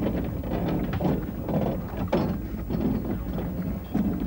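Narrow-gauge railway carriage being pushed by hand along a siding, with irregular knocks and creaks from its wheels and running gear as it rolls.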